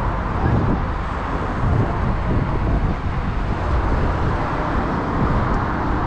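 Steady road traffic: a continuous wash of car engines and tyre noise with no single vehicle standing out.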